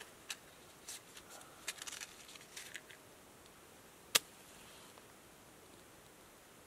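Faint rustles and small clicks of a matchbox being handled, then a single quick scratch of a wooden match struck on the box about four seconds in, followed by a faint hiss as it flares.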